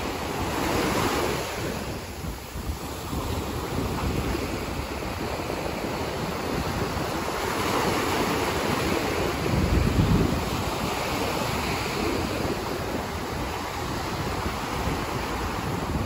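Small ocean waves breaking and washing up a sandy beach, a continuous wash of surf that swells about a second in and again from about eight to ten seconds, loudest near ten seconds. Wind rumbles on the microphone underneath.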